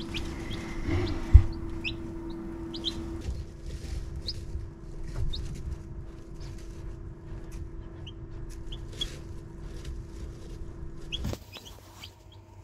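Newly hatched chicks peeping: short, high cheeps scattered throughout, over a steady low hum. A single sharp thump about a second and a half in is the loudest sound.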